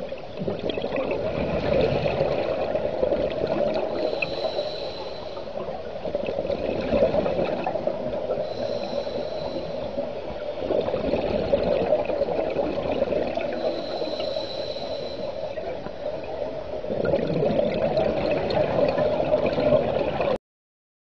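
Underwater breathing of a scuba diver through a regulator: a hiss on each inhale, then a gush of bubbling exhaust, in cycles about every five seconds. It cuts off suddenly near the end.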